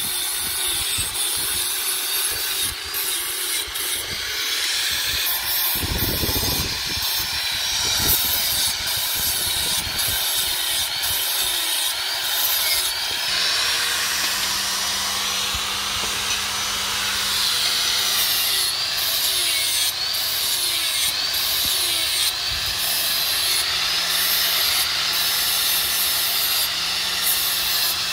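Handheld angle grinder running, its abrasive wheel grinding the edges of steel knife blades. A steady high whine and grinding noise, the whine wavering in pitch in the second half as the load on the wheel changes.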